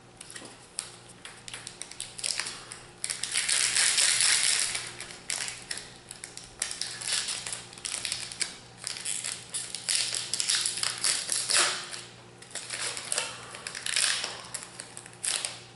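Foil wrapper of a Magic: The Gathering booster pack crinkling and tearing as it is opened by hand, in uneven bursts of crackling with sharp clicks, loudest from a few seconds in until near the end.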